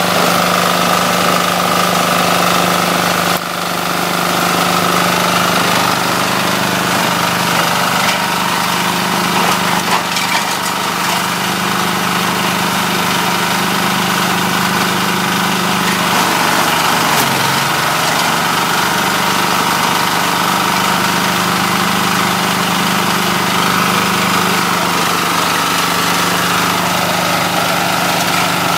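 Small engine running steadily, driving a shredder as coconut palm fronds are fed in and chopped into fibre, with scattered crackle from the cutting. The engine note sags briefly a little past halfway under the load, then recovers.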